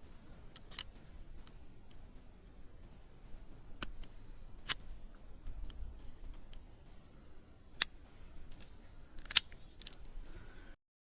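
Nagant M1895 revolver's mechanism being worked by hand: a handful of sharp metallic clicks a second or more apart, the loudest about eight seconds in, followed by a quick double click.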